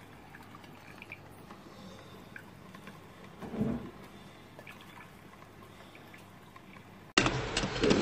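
Faint dripping and gurgling of water, with one louder gurgle about three and a half seconds in. Near the end a much louder passage cuts in abruptly.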